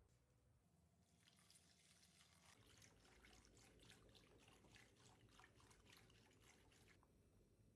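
Faint liquid sound: pouring and dripping with many rapid small crackles, starting about a second in and easing off near the end.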